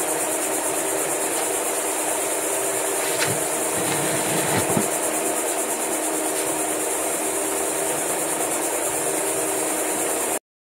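Insects buzzing steadily, a dense high-pitched drone with a fast even pulse, over a low steady hum; a couple of faint knocks come about three and four and a half seconds in, and the sound cuts off suddenly near the end.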